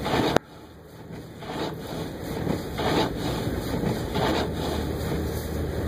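Car driving on a snowy road: steady low road and engine rumble with gusts of wind buffeting the microphone. The sound drops out sharply about half a second in, then builds back up.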